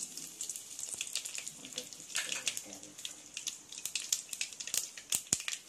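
Hot oil sizzling in a stainless steel pan around spluttering mustard seeds, cumin seeds and fresh curry leaves: a steady hiss broken by many sharp crackles and pops.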